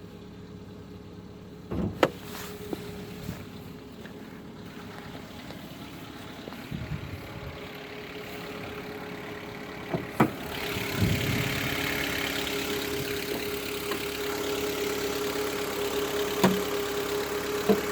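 2014 Kia Cerato engine running cold at a raised warm-up idle, a steady hum with a few sharp clicks. It gets louder and fuller about ten seconds in. The owner expects a piston knock to appear once the revs drop.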